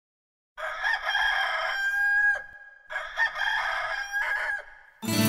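A rooster crowing twice, each crow about two seconds long. Music with a flute starts at the very end.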